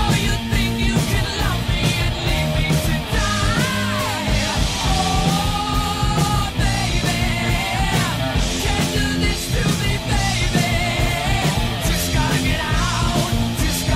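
Loud rock music with singing over a steady, driving beat.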